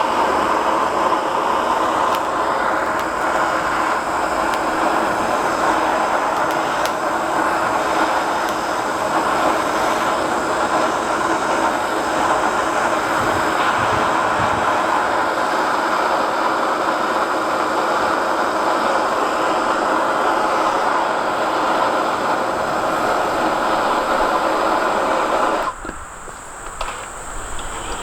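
Forge running with a steady rushing noise as it heats the steel spanner; the noise drops away briefly near the end and then comes back.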